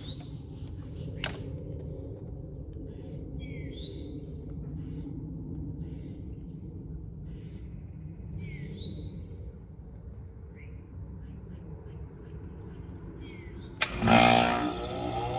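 Goodman heat pump outdoor unit humming steadily in defrost, with birds chirping now and then. Near the end a sharp clack and a loud rushing whoosh as the reversing valve shifts back to heating at the end of the defrost cycle, then a rising whir as the outdoor fan spins up.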